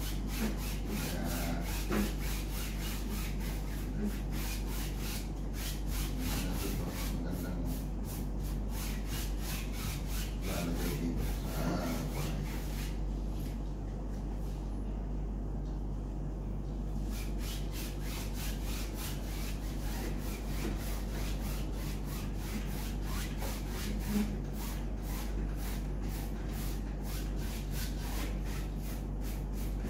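A paintbrush scrubbing back and forth across a large stretched canvas, a rhythmic rubbing of a few strokes a second, over a steady low hum.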